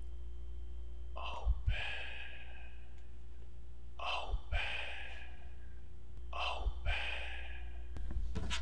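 A man breathing out in three audible sighs, about two and a half seconds apart, over a low steady hum. A short click comes near the end.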